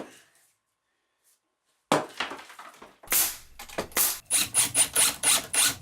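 A click, then about two seconds of silence, then a hand tool at work in quick, even strokes, about three or four a second.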